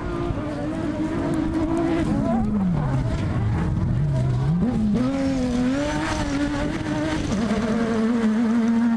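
Renault Mégane off-road rally car's engine under hard load: the revs drop away about two seconds in, climb sharply again near the middle, and then hold steadier near the end.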